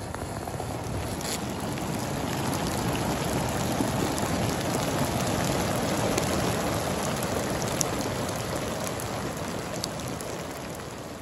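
Rain falling on grass and wet ground as it eases off: a steady hiss with scattered sharper drop ticks. It grows a little louder in the middle and fades toward the end.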